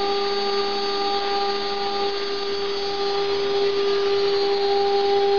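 CNC router spindle running at a steady speed with a constant whine, its small end mill milling an aluminium composite (Alucobond) panel. A lower hum in the sound drops out about two seconds in.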